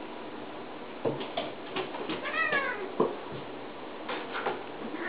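Cat and puppy wrestling on a hardwood floor: a scatter of knocks and scuffles, with one short meow from the cat, rising then falling, about two seconds in.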